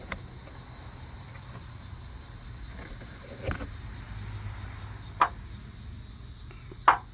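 Steady high chirring of insects, with three short sharp clicks spread through it, the loudest near the end.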